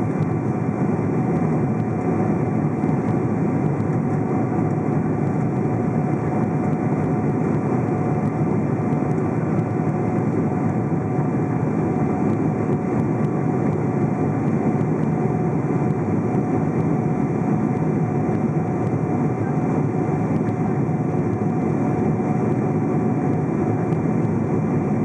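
Steady cabin noise of a Boeing 777-200 climbing after takeoff, heard from a window seat over the wing: the drone of its GE90 engines and the rush of airflow, with a thin steady tone above.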